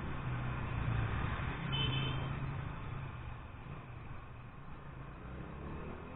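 Motor vehicle engine running amid road traffic, louder over the first few seconds as a vehicle passes and then fading. A short, high beep sounds about two seconds in.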